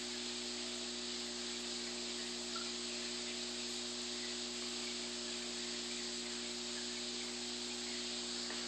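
Aquarium aeration running: a steady fizzing hiss from a curtain of fine air bubbles rising to the water surface, with a low steady hum from the air pump.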